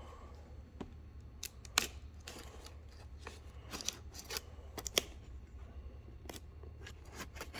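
Irregular snips, clicks and rustles of tape and cardboard as a taped-up phone box is cut and worked open by hand.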